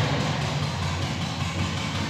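Background music with steady sustained tones.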